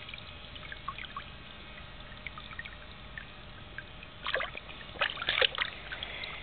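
Water trickling and splashing in a small inflatable paddling pool, from a spouting starfish water toy and a toddler's hands in the water. Scattered small splashes, with a louder cluster from about four seconds in to about five and a half.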